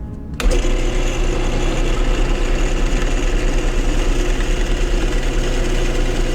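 A woodworking power tool starts abruptly and runs steadily, with a constant low hum under a broad whirring noise.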